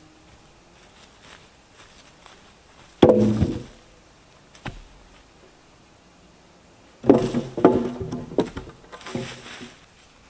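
Heavy wooden thuds of timber being knocked or set in place: one hard knock about three seconds in, then a cluster of knocks over the last three seconds.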